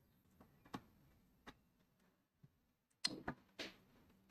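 Faint clicks and light knocks of hands handling a laptop's plastic case, a few soft ticks early, then a short cluster of louder clicks about three seconds in.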